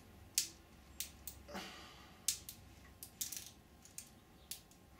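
Scattered sharp clicks and small cracks, about ten over a few seconds, as a moulded foam wing skin is pressed and prised away from a 3D-printed ABS mould and its thin flashing breaks off.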